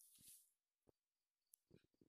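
Near silence with a few faint, short clicks and a soft rustle at the start.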